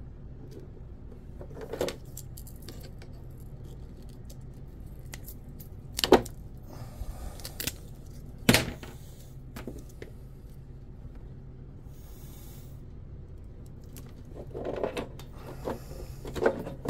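Small parts and tools being handled on a workbench: three sharp knocks or clicks, the loudest about six and eight and a half seconds in, with bits of rustling in between, over a steady low hum.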